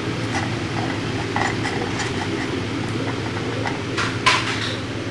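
Hands patting and flattening soft urad dal vada batter on a steel plate, with a few light taps against the metal, the sharpest about four seconds in, over a steady low rumble.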